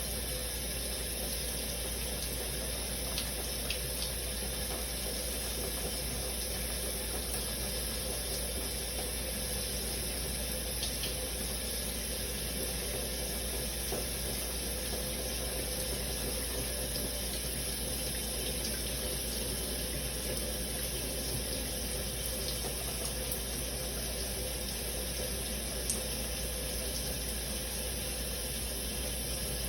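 Shower running steadily: an even hiss of falling water, with a few faint ticks.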